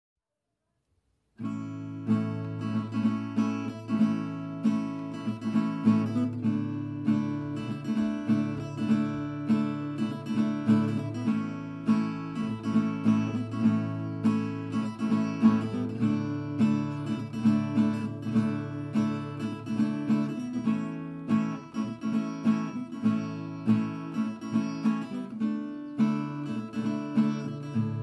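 Background music: an acoustic guitar playing a steady, evenly repeating picked pattern, starting about a second and a half in.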